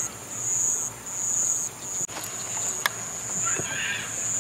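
A high-pitched insect song, like a cricket's, repeating in even pulses a little under a second long, then running on more continuously about halfway through. A single sharp click comes near the three-second mark.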